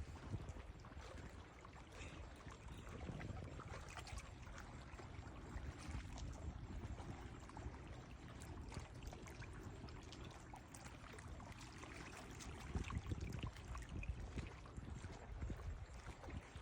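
Ocean water sloshing and splashing, an even rush of noise with scattered small splashes over a low rumble.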